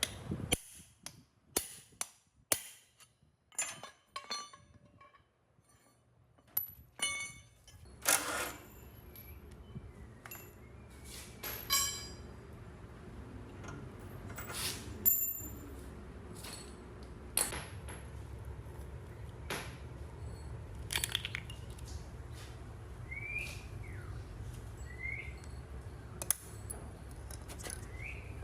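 Loose metal parts clinking and knocking as they are handled and set down, several strikes ringing briefly. A low steady hum comes in about eight seconds in.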